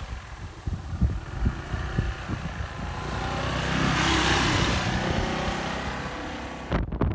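A road vehicle going past: its noise swells to a peak about halfway through and then fades, over irregular low rumbling. The sound changes abruptly just before the end.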